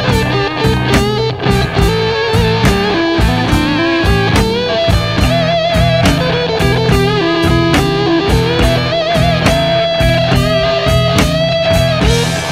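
Progressive rock band recording: electric guitar, bass and drums, with a held, wavering lead melody line over a steady beat.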